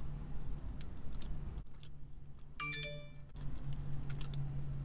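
Quiet chewing of a soft cookie over a steady low hum. About two and a half seconds in comes a short electronic chime-like ding made of several clear tones.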